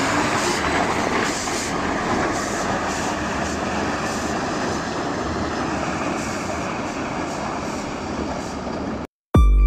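Loaded dump truck driving off on a dirt road: a rough, steady noise of engine and tyres that eases slightly as the truck moves away. It cuts off suddenly near the end.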